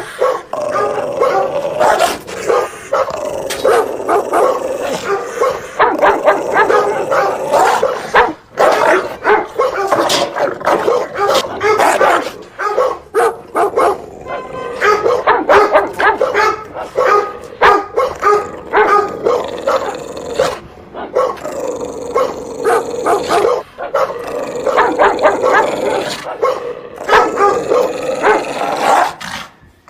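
Dog barking loudly in rapid, repeated barks, with only brief pauses.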